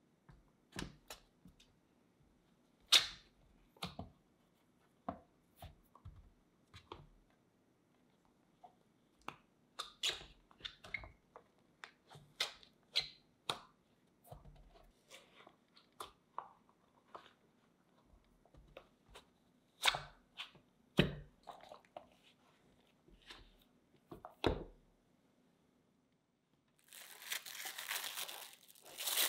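Scattered taps and knocks as a silicone dome mold is handled, flipped and peeled off cakes on a metal baking tray, a few sharper knocks among them. Near the end, plastic cling film crinkles for about two seconds as it is pulled off a glass bowl.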